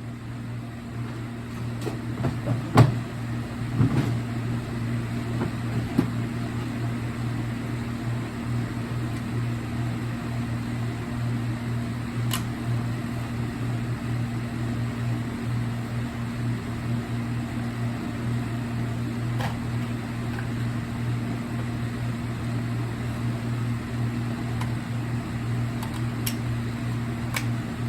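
A steady low hum with a few light clicks and taps scattered through it.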